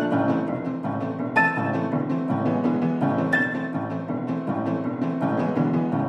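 Instrumental background music, led by piano over low strings, moving in a steady rhythm.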